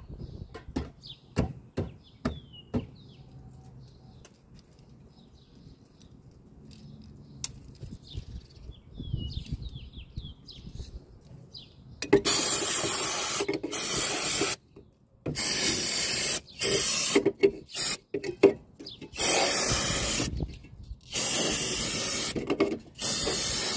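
Aerosol brake cleaner spraying in a series of loud hissing bursts, each one to two seconds long, starting about halfway through, to wash off spilled brake fluid. Before that there are only a few light clicks.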